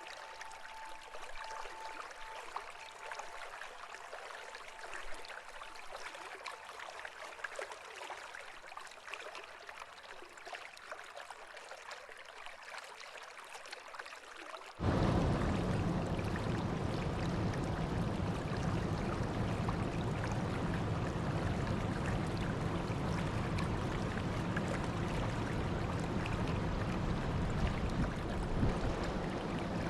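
River water flowing, a steady rushing hiss. About halfway through it cuts abruptly to louder, deeper rushing water.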